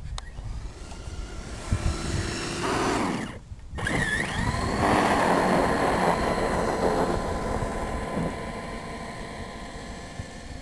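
Axial SCX10 RC crawler's electric motor and drivetrain whining as it drives through snow. The whine rises in pitch as it speeds up about four seconds in, after a brief dropout, and is loudest as the truck passes close, then fades as it drives away.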